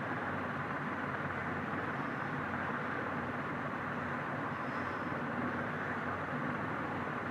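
Steady background noise with a faint low hum, even throughout, with no tapping or knocking.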